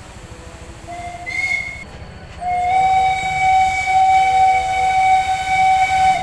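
Steam whistle of the Mak Itam E1060 steam locomotive: a short blast about a second in, then one long, steady blast that stops at the very end.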